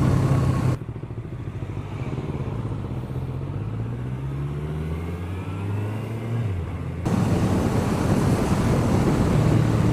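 Motorcycle riding with loud wind rush on the helmet microphone; about a second in the sound cuts to a quieter, muffled stretch where the engine's pitch climbs in steps as it accelerates, then drops, before the loud wind rush cuts back in about seven seconds in.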